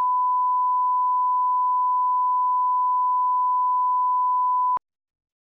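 Steady 1 kHz line-up tone played with colour bars, a single pure beep held at one pitch, cutting off abruptly with a click near the end.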